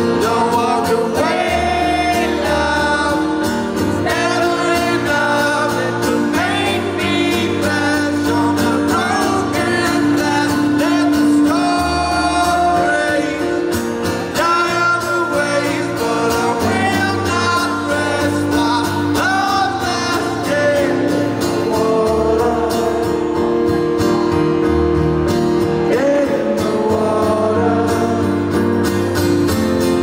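Live music: a man singing while playing acoustic guitar, with low bass notes under the chords.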